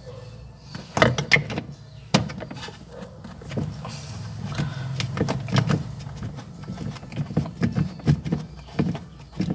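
Irregular metallic clicks and clinks of a hand tool working on a washing machine's pulley mount and drive shaft, with a steady low hum underneath: the pulley seat being fastened back onto the gearbox shaft with its nut.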